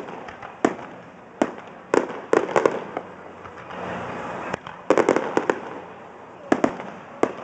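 Fireworks going off: sharp bangs at uneven intervals, some single and some in quick runs of several, with a cluster about two and a half seconds in and another about five seconds in.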